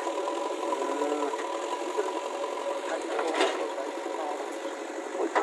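Diesel engine of a JCB backhoe loader running steadily at a constant pitch.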